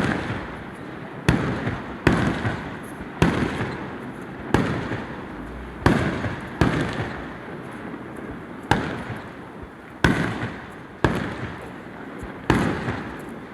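Aerial firework shells bursting in quick succession: about eleven sharp booms at uneven intervals, each trailing off in a decaying echo.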